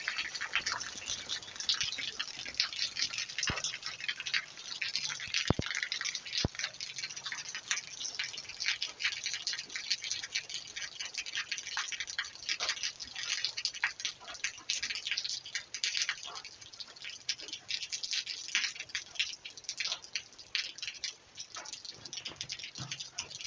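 Rain pattering, heard as a dense, irregular run of quick drop ticks, with a few sharper clicks a few seconds in.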